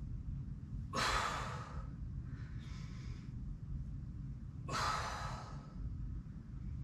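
A woman breathing out hard twice, about four seconds apart, with a fainter breath between, as she presses dumbbells up from lying on her back: exhaling on the effort of each press.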